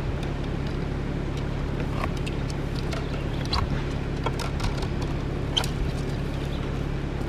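Scattered light clicks and clacks of arrows being pulled from a foam archery target and gathered together in the hand, over a steady low outdoor rumble with a constant hum.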